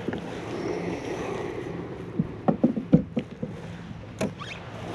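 Wind and water ambience on a small fishing boat with a faint steady hum, then a quick run of sharp knocks and clatters a couple of seconds in and one more near the end, from a landed fish and gear being handled on the hull.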